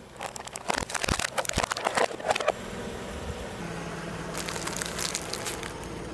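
An object crunching and cracking as it is crushed under a car. A dense run of sharp cracks lasts about two seconds, and a few seconds later comes a softer spell of crackling.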